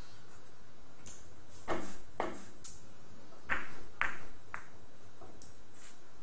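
Billiard balls and cue clicking during play: six sharp clicks with a short ring after each, in two quick groups of three about a second apart.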